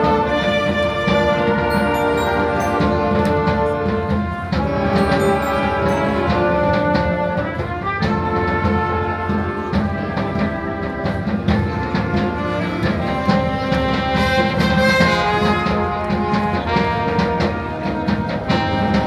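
Live wind band of brass and saxophones playing a piece together, holding chords under a moving melody.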